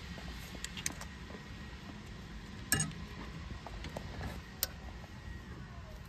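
A few light metallic clicks just under a second in, a louder clack near the middle and another click later, over a low steady outdoor rumble: small metal parts and tools being handled.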